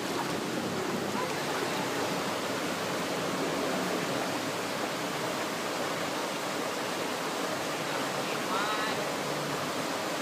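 Shallow river rushing over rocks: a steady, even wash of water noise. A voice calls out briefly about eight and a half seconds in.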